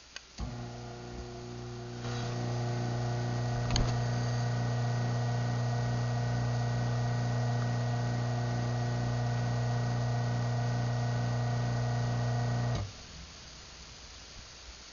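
Craftsman half-horsepower garage door opener running a closing cycle: a click, then the motor starts with a steady electric hum that grows louder about two seconds in, with a brief knock a little later, and stops abruptly near the end.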